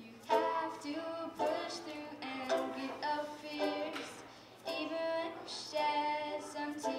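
A young female voice singing a song in short phrases, with a brief pause about four seconds in.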